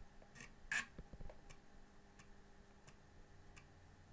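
Panasonic JU-253 Amiga floppy drive reading a disk, its head stepping from track to track: faint, unevenly spaced clicks about one or two a second, with one louder click under a second in.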